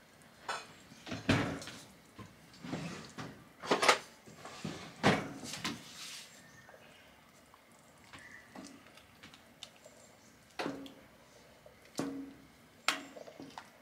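Kitchen clatter as a soup pot, ladle and wooden bowl are handled: a quick run of knocks and clinks in the first half, then a few single knocks as soup is ladled from the pot.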